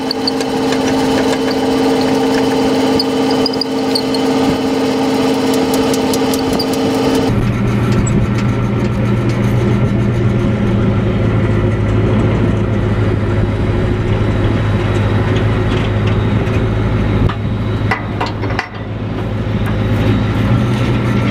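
An engine idling steadily. About seven seconds in, its hum abruptly changes to a lower, deeper pitch.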